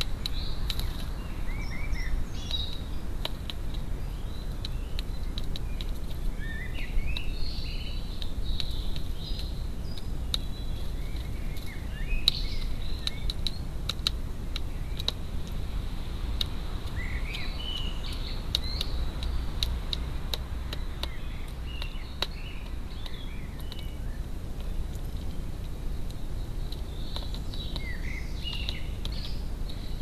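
Small garden birds chirping and singing off and on, over a steady low outdoor rumble. Scattered sharp clicks and taps run through it.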